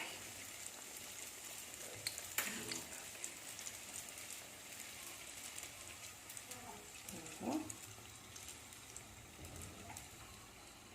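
Yeast donut dough frying in hot oil: a faint, steady sizzle, with a brief click about two seconds in.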